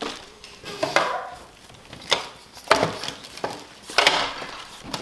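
Several sharp clicks and knocks of small toy pieces and packaging being handled and set down, about four over the few seconds, with quieter rustling between.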